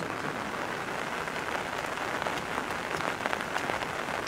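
Steady rain falling, with many separate drops heard as sharp ticks.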